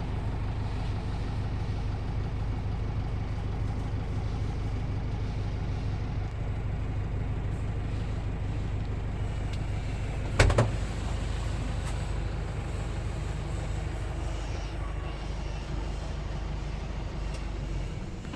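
A vehicle engine running steadily with a low hum, heard from inside the vehicle. A single sharp knock comes about ten seconds in.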